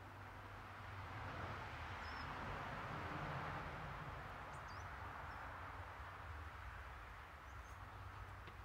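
Quiet rural outdoor ambience: a soft rushing noise that swells a couple of seconds in and then eases, over a low hum, with a few brief, high small-bird chirps.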